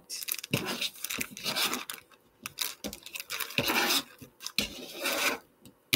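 A metal spatula and knife scraping cut papaya pieces across a plastic cutting board, with a zip-top plastic bag crinkling as the pieces go in, in short irregular bursts.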